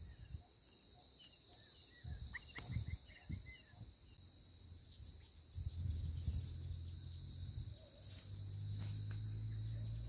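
Steady high-pitched insect buzz with a few faint short bird chirps between about one and four seconds in. A low steady hum comes in a little past halfway.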